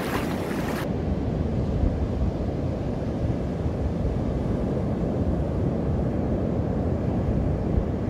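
Steady rush of breaking surf with wind buffeting the microphone. The higher hiss drops away about a second in.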